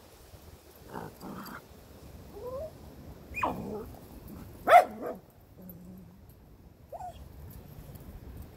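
Dogs giving a handful of short whines and yips, some rising in pitch, with one sharp, loud bark a little past halfway through.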